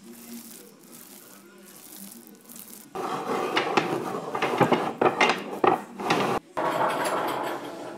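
Wooden strips clattering and knocking against each other as they are handled, starting about three seconds in, with a short break near the end. Before that, only a low hum.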